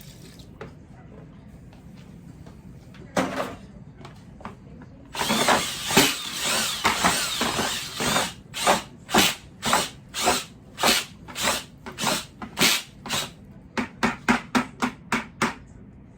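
Power drill spinning a meat-shredder attachment through pulled pork. A short burst about three seconds in, a few seconds of steady running, then a run of short trigger pulses, about two a second.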